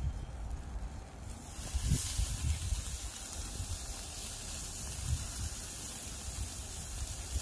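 Raw marinated carne asada laid on a charcoal kettle grill's hot grate starts sizzling about a second in and keeps up a steady hiss, over a low rumble.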